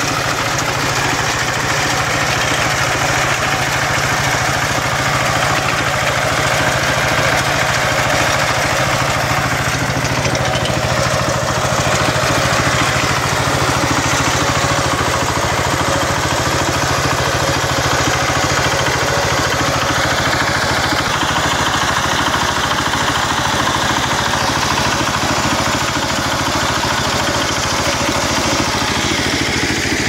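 Kentavr MB 1010DE-6 walk-behind tractor's single-cylinder diesel engine running steadily while pulling a vibrating potato digger through the soil.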